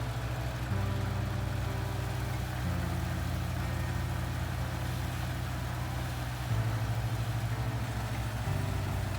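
Iseki combine harvester running, its engine note stepping between a few steady pitches.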